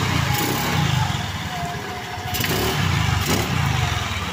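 A Rusi Rapid 150 scooter's single-cylinder engine, running on a newly fitted 26 mm Keihin carburetor, is revved in several throttle blips while parked, rising and settling between them.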